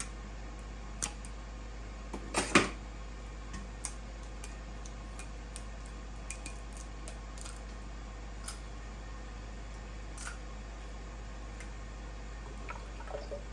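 Scattered light clicks and knocks of kitchen containers and utensils being handled, with a louder double knock about two and a half seconds in, over a steady low hum.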